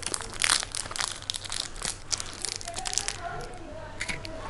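Plastic wrapper of a Munch chocolate wafer bar crinkling and crackling as it is torn and pulled open by hand. The crackling is densest in the first three seconds.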